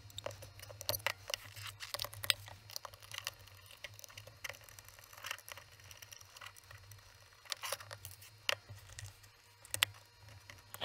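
Hands taking a plastic digital multimeter apart: the rubber holster pulled off, case screws turned out with a screwdriver and the case halves eased apart, giving scattered plastic clicks, taps and short scrapes over a faint low hum.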